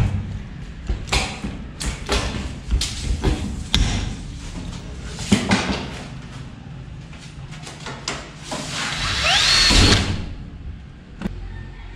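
Hand pop-rivet gun clicking and snapping as rivets are set through the ceiling's steel frame, with knocks of tool and metal handling. About nine seconds in, a drill spins up with a rising whine and stops about a second later.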